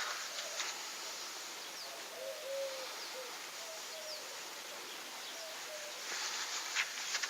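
A bird hooting or cooing in the background: a series of short, soft, low notes in small groups, over a faint steady outdoor hiss.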